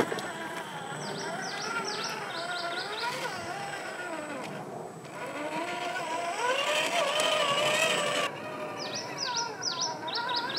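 Electric motor and geartrain of a 1/8-scale Traction Hobby KM5 rock crawler whining as it climbs over rocks, the pitch rising and falling with the throttle. A bird sings twice, each time a quick run of high downward-sweeping notes.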